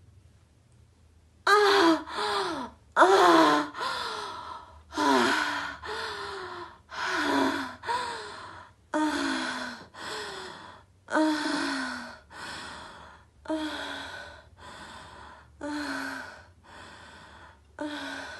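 A person's voice gasping and breathing hard. The breaths come mostly in pairs about every two seconds, each with a falling pitch. They start about a second and a half in and grow gradually softer.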